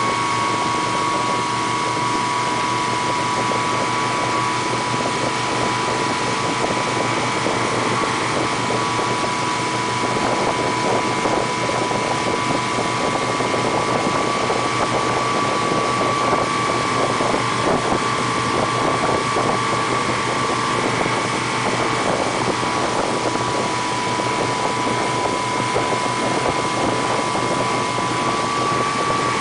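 Tow boat's engine running steadily at speed, with a constant whine and wind on the microphone.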